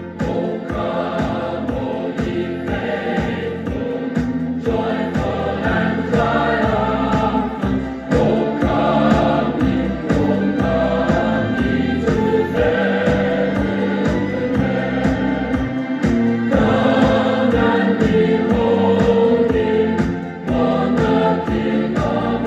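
Choir singing Christmas music with accompaniment, played from a record on a Bush SRP51 record player.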